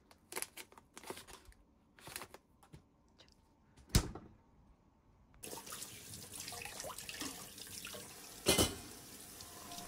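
Bottles and packets in a refrigerator door pocket clicking and rattling as they are handled, then the fridge door shut with a sharp thump about four seconds in. After that a kitchen tap runs steadily into the sink, with one loud clatter of kitchenware near the end.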